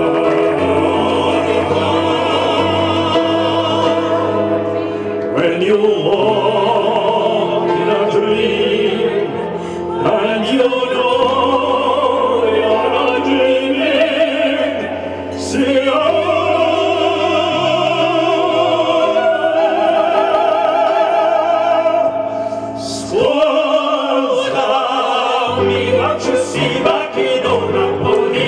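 Male and female voices sing opera over musical accompaniment, amplified through microphones and PA speakers. The singing has a wide vibrato, with short breaks between phrases.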